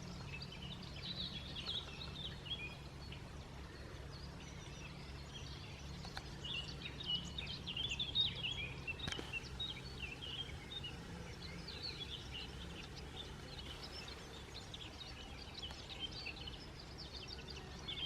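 Several small birds singing, with many short, high chirps and twitters throughout, over a faint steady low rumble.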